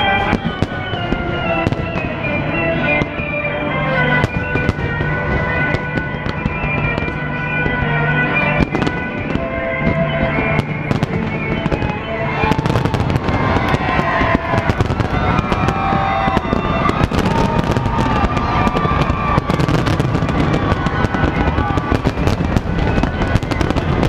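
Fireworks display bursting and crackling over music. The music's held tones stand out in the first half; after about twelve seconds the bangs and crackles come thicker and louder.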